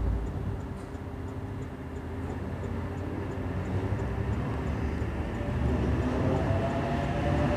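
Sydney Trains OSCAR (H set) electric train running with a steady low rumble and hum. A slightly rising whine comes in near the end.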